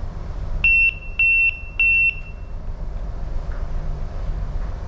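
Three high electronic beeps from ship's bridge equipment, each about half a second long, starting about half a second in. A steady low hum of the ship runs underneath.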